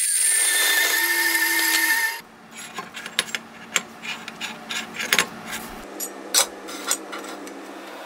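Metal-cutting band saw cutting through steel angle, a loud steady hiss that stops abruptly about two seconds in. After that come a series of light metallic clinks and taps as the cut steel pieces are handled, over a low hum.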